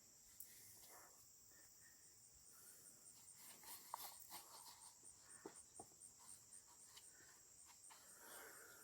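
Near silence with a faint, steady high insect trill, pulsing a few times a second, likely crickets. A few faint clicks and rustles come through, mostly around the middle.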